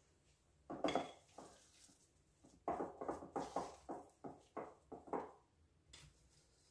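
Spatula scraping and knocking creamed butter-and-egg batter off electric mixer beaters, with the mixer switched off: one louder stroke about a second in, then a run of about eight short scrapes, about three a second.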